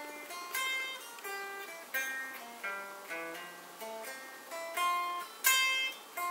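Electric guitar playing an arpeggio exercise slowly, one picked note at a time, about two notes a second.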